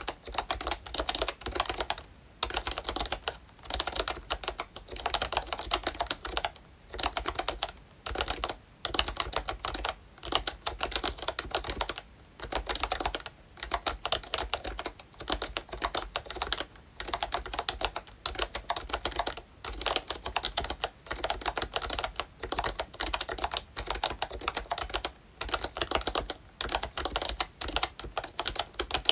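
Typing on a ROYCHE Disney Mickey Mouse retro membrane keyboard with round typewriter-style keycaps: a dense patter of key clacks in runs of a second or two, with short breaks between them.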